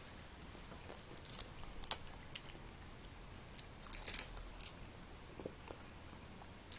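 A cat biting and chewing a sheet of dried seaweed, making soft crisp crunches that come in scattered clusters, the busiest about two seconds in and around four seconds in.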